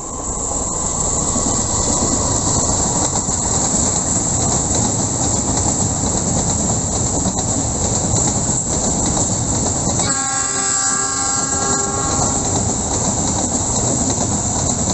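Freight train of tank wagons rolling past close by, a loud steady rumble with wheel clatter on the rails. About ten seconds in, a locomotive horn sounds for about two and a half seconds over the passing wagons.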